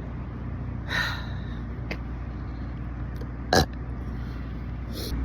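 A person burping: a short burp about a second in and a louder, very brief one about three and a half seconds in, over a steady low hum.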